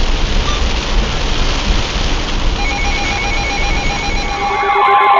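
Steady hiss of heavy rain with a low rumble. From about halfway, faint rapid beeping tones come in, and just before the end warbling tones and guitar music take over.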